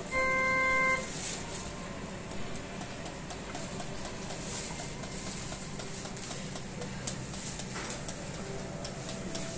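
A single electronic beep lasting about a second from the Nipro Surdial 55 Plus hemodialysis machine. It is followed by a steady low machine hum and a few light clicks as tubing and a hemoperfusion cartridge are handled.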